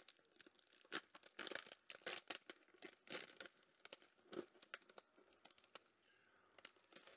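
Faint crinkling and rustling of plastic snack packaging being handled, with a few small clicks, mostly in the first five seconds.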